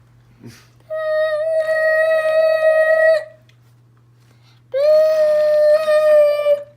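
A person's voice holding two long, steady sung notes of about two seconds each, the second starting with a short upward scoop in pitch.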